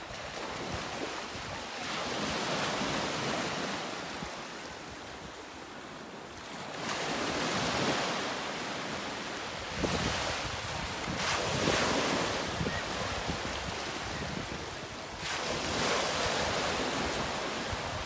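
Sea waves washing onto the shore, the rush swelling and falling back every few seconds, with wind buffeting the microphone.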